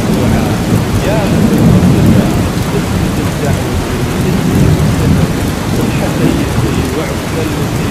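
Steady heavy rain with deep rolling thunder that swells and eases.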